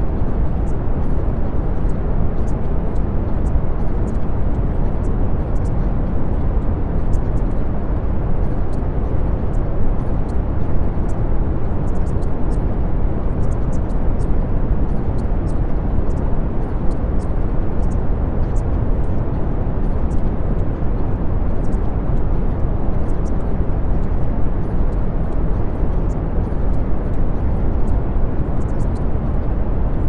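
Brown noise: a steady, unchanging rush of hiss with most of its weight in the low rumble.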